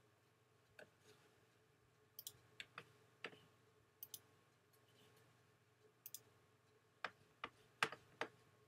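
Quiet, scattered clicks of a computer mouse, some in quick pairs and a run of four near the end, over a faint steady hum.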